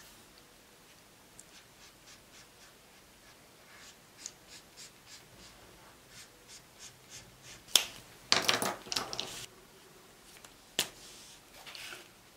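Paint marker tip dabbing on paper in light, even taps, about three a second. Then a sharp click, about a second of rattling, and another click as the marker is swapped for another.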